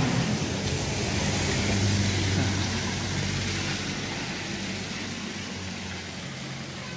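A motor vehicle running, its engine hum and road noise slowly fading away over several seconds.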